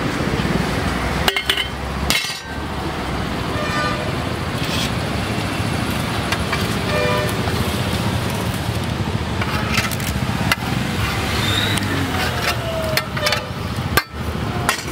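Steady street noise of road traffic with faint background voices, and a few sharp clicks.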